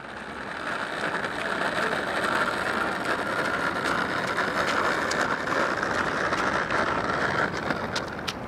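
Airbus A350-900's Rolls-Royce Trent XWB jet engines on final approach: a steady rushing noise with a whine over it, the whine fading near the end.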